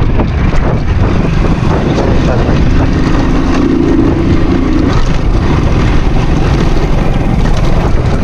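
Motorcycle engine running, with heavy wind noise buffeting the microphone.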